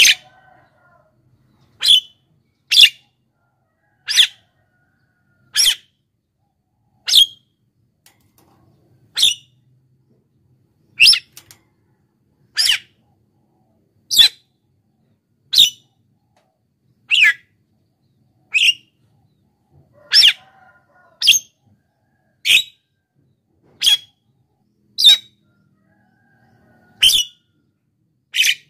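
Javan myna giving short, sharp single calls, about twenty of them, one every one to two seconds.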